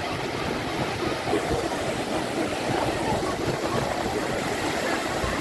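Sea surf washing on the shore: a steady rushing noise with an uneven low rumble underneath.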